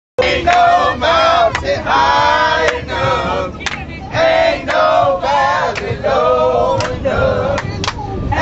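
A group of boys singing loudly together, off-key, cutting in abruptly just after the start.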